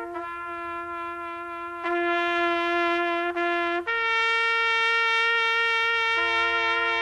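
A solo horn playing a slow melody of long held notes, moving to a new note every second and a half or two.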